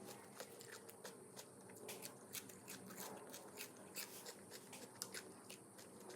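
Faint chewing and mouth sounds of someone eating, a quick irregular run of small wet clicks and crunches.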